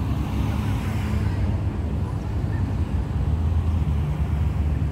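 Steady low rumble of outdoor background noise, strongest in the bass, with no distinct events.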